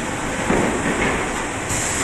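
Wide-belt calibration sanding machine for plywood running steadily while a sanded panel feeds out over its outfeed rollers, with a louder knock about half a second in.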